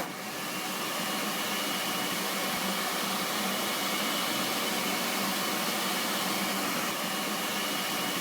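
Steady rushing hiss that starts abruptly, with a faint high whine running through it.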